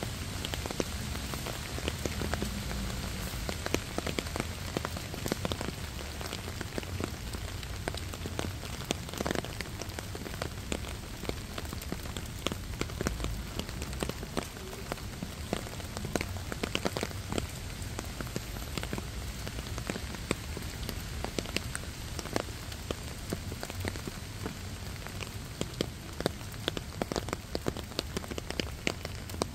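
Steady rain falling on garden plants, a clump of lilyturf (liriope) and the beds around it: a continuous hiss with many separate drops heard striking the leaves.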